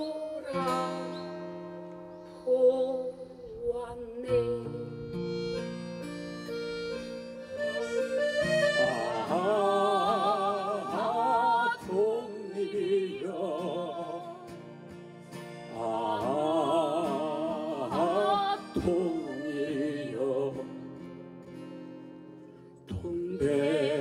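Accordion playing long sustained chords while a woman sings a slow Korean mourning song in long held phrases with wide vibrato; her voice comes in strongly about a third of the way through and again past the middle.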